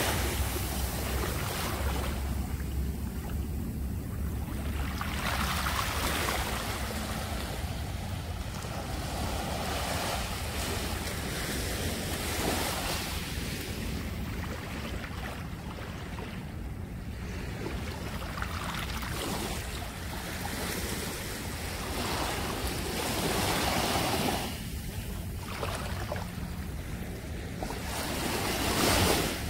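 Shallow seawater washing and splashing, swelling and fading every few seconds, with wind rumbling on the microphone.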